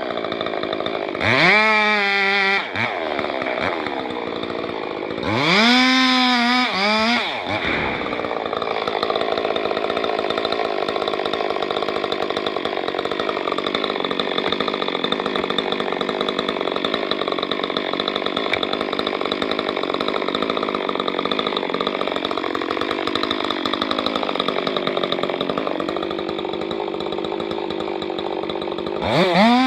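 Chainsaw revved up and down twice, then held at steady high revs for about twenty seconds as it cuts through a large cedar trunk, and revved again near the end.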